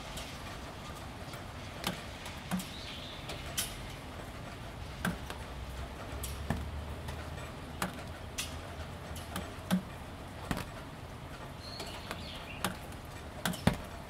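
Light, steady rain with irregular drips tapping on corrugated plastic roofing panels: a soft continuous patter with about a dozen sharper, uneven taps.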